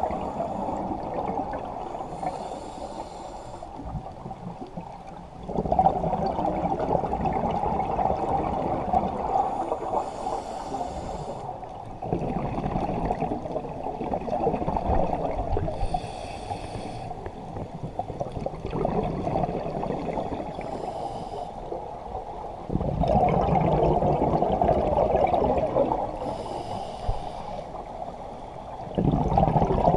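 Scuba diver breathing through a demand regulator underwater: a short hissing inhale every five to six seconds, each followed by a longer, louder bubbling rush of exhaled air from the exhaust valve.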